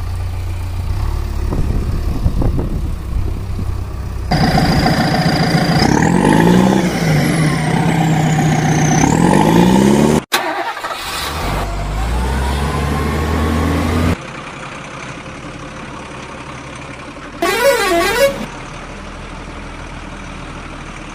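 A string of added vehicle sound effects. A low steady engine hum comes first. From about four seconds in, a loud horn-like blare with tones sliding up and down takes over and cuts off abruptly near the middle. Quieter engine noise follows, with a brief warbling siren-like tone about three-quarters of the way through.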